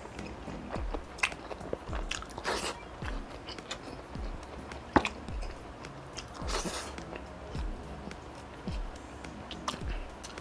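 Close-miked chewing of a mouthful of rice, with wet mouth smacks and clicks at a slow chewing rhythm. There is a sharper click about five seconds in.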